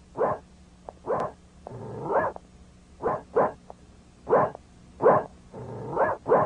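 A dog barking over and over, about nine barks spaced roughly a second apart, some coming in quick pairs.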